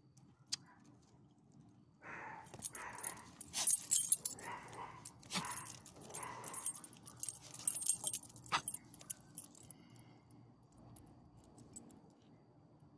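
A small dog's metal collar tags jingling and clinking in quick irregular runs as the dog gets up and moves, with rustling of its harness and leash.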